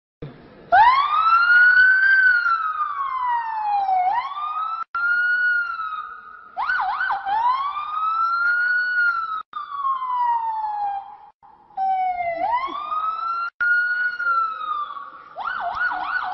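A child imitating a police siren with his voice: long wails that rise and fall in pitch, with quick warbling yelps near the middle and again near the end, broken by a few very short gaps.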